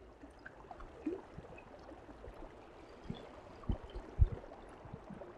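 A muddy stream rushing over rocks with a steady hiss, and a few dull low thumps about two-thirds of the way through.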